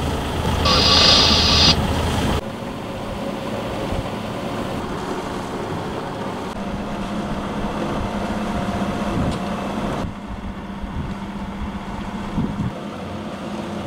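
Sailing yacht's engine running steadily as the boat motors out over calm water. The first couple of seconds are louder, with a brief hiss about a second in.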